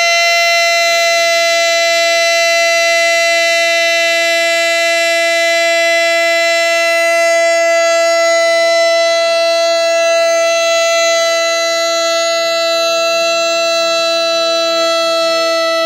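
A single long, loud held note at one fixed pitch, rich in overtones, sounding without a break and easing off slightly near the end.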